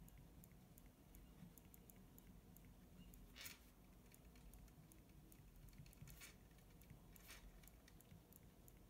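Faint scratching of a pen writing on paper, a few short strokes over near-silent room tone.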